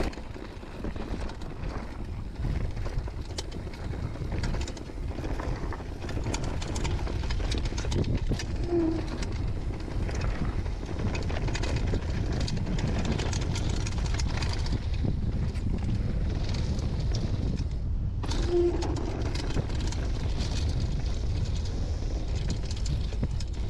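Downhill mountain bike riding fast over a rocky dirt trail: steady wind rumble on the body-worn action camera's microphone, with tyres crunching on gravel and the bike rattling over bumps. A brief hush about eighteen seconds in ends in a sharp knock.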